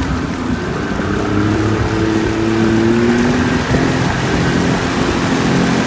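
Pontoon boat's engine running steadily under throttle while towing a tube, its pitch rising slightly in the first few seconds, over the rushing, churning water of the wake.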